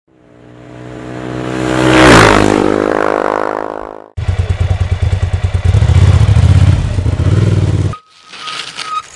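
A motor vehicle engine passing by, its sound swelling and its pitch dropping as it passes. After an abrupt cut, an engine runs with a fast, loud throb, and this also cuts off suddenly.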